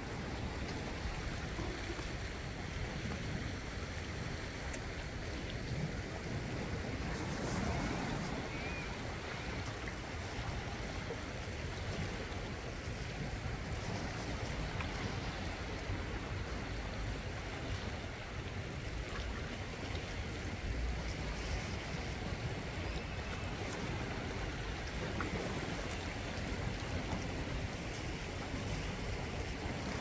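Small sea waves washing steadily over and around black volcanic rocks along a shore, with wind on the microphone adding a low rumble.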